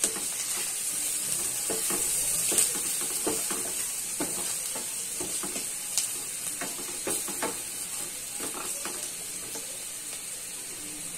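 Sliced onions frying in hot oil, sizzling steadily, while a wooden spatula stirs and scrapes them around the pan in short, irregular strokes. The sizzle eases a little toward the end.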